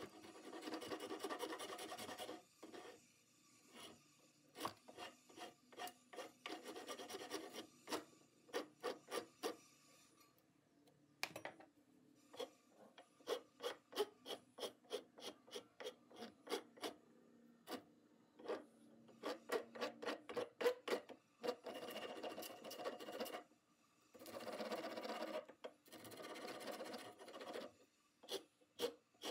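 Round wood rasp worked by hand in the bored top of a piece of weathered wood, widening and smoothing the candle hole. The rasping alternates between long unbroken passes and runs of short, quick strokes at about two to three a second.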